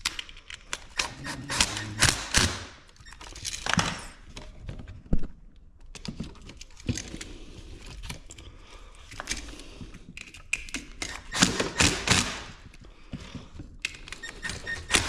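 Hands moving the wiring over to a new GFCI receptacle: irregular clicks, taps and short scrapes of plastic and wire being handled.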